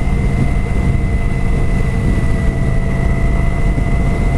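2013 Kawasaki Vulcan 900 Classic's V-twin engine running steadily through its stock exhaust. It is heard from a microphone inside the rider's helmet, with no revving up or down.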